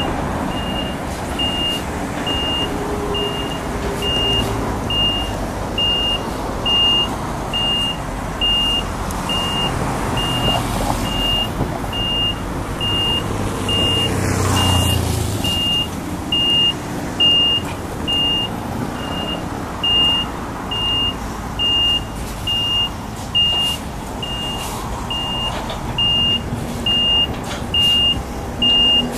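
Reversing alarm of a new DAF truck tractor beeping steadily, about two beeps a second, over its diesel engine running at low revs as it backs down the trailer's loading ramps. The engine note rises briefly about halfway through.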